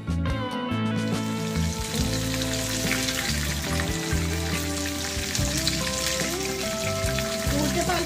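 Bombay duck fish fritters deep-frying in hot oil in a kadai, a steady sizzle that swells about a second in as fresh batter goes into the oil. The fritters are turned over with a slotted metal spoon.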